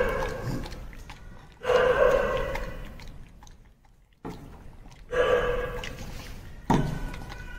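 Slow background music: chords struck about every three and a half seconds, each fading away.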